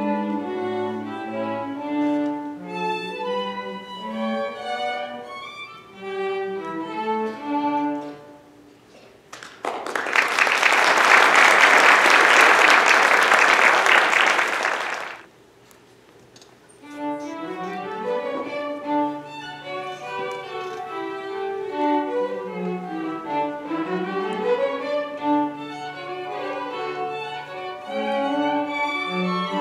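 Two violins and a cello playing a classical divertimento in D minor, with the music stopping at the end of the first movement. Audience applause follows for about five seconds and is the loudest part. After a short pause the trio begins the second movement.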